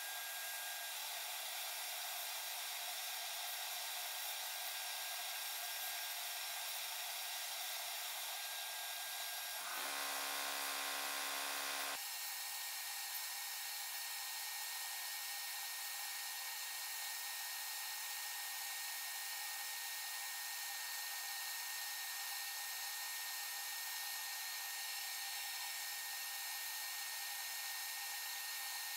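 Glass bead blasting in a blast cabinet: the air nozzle hisses steadily as media is blasted onto a pistol slide, briefly joined by a low hum about ten seconds in.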